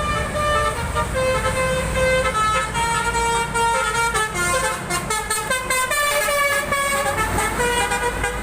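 Bus telolet horn playing a quick melody of stepping notes, over the low rumble of the bus's engine.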